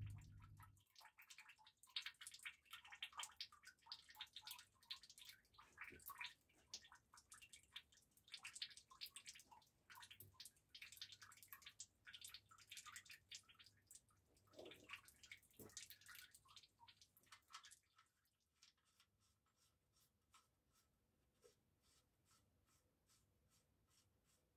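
Used engine oil dripping from the drain-plug hole of a Mercedes OM 646 diesel sump as the drain nears its end: a quick, irregular patter of drops that thins out about two thirds of the way through to faint, evenly spaced single drips.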